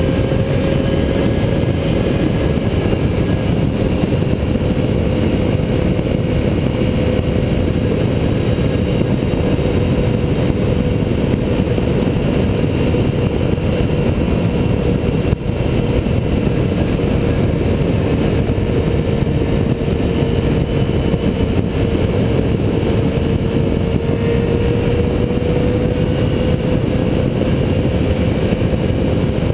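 Motorcycle cruising at highway speed: a steady engine drone under heavy wind rush on a helmet-mounted camera. The engine note sags slightly near the end and then comes back up.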